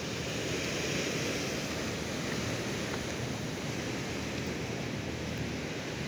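Sea surf washing against a rocky shore: a steady rushing noise that swells slightly about a second in.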